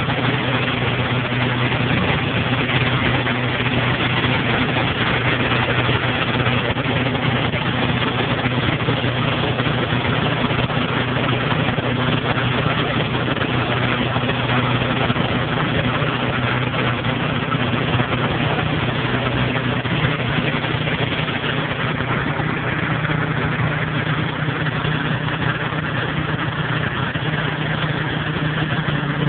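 An engine running steadily at one constant speed, with an even hiss over it and no change through the whole stretch.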